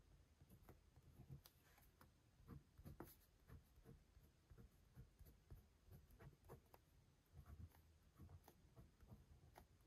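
Faint sounds of a Spider-Man topper pen being written with: light scratching and small irregular taps, several a second.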